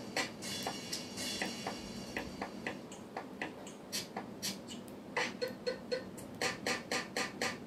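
Black pen tip tapping and stroking on paper over a hard table: a string of short sharp clicks, coming faster in the last couple of seconds.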